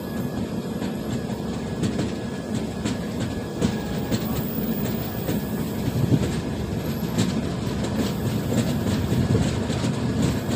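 Passenger train running at speed, heard from beside the moving coach: a steady rumble of wheels on rail with irregular clicks as the wheels pass over rail joints.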